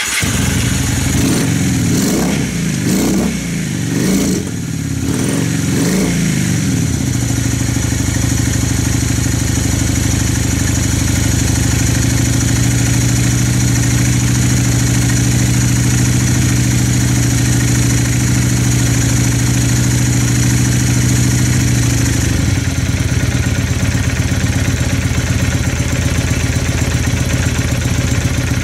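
Motorcycle engine running just after starting from its winter lay-up, blipped up and down a few times over the first six seconds, then settling into a steady idle, with a slight change in its note late on.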